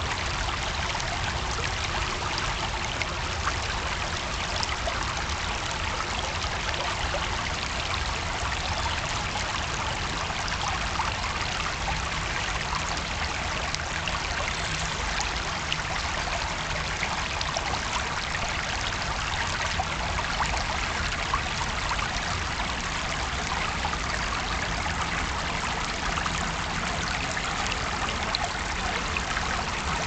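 Shallow brook running over a bed of rounded pebbles close to the microphone: a steady babble of rippling, trickling water with fine little splashes throughout.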